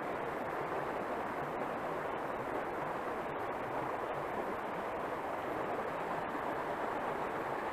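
Steady rush of flowing river water, an even noise without breaks.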